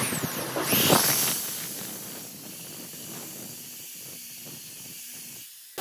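Corded electric drill running, its twist bit boring into a block of wood, heard as a steady hissing whir. It is loudest for the first second and a half, then goes on more quietly.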